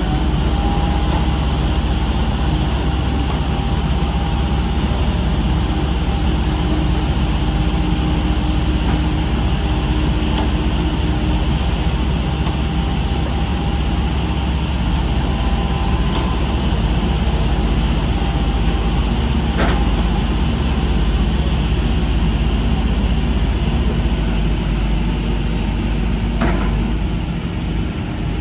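Heavy diesel engine of a machine running steadily with a deep rumble, with a steady whine over it for roughly the first dozen seconds that then fades out.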